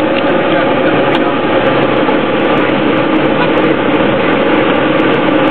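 Diamond Eclipse light aircraft's four-cylinder piston engine and propeller running steadily in flight, heard inside the cockpit.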